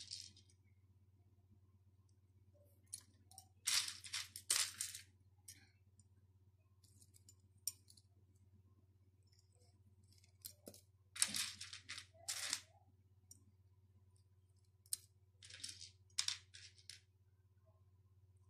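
Small plastic beads and tube beads clicking and rustling as they are handled and threaded onto a needle, in a few short clusters, over a faint steady low hum.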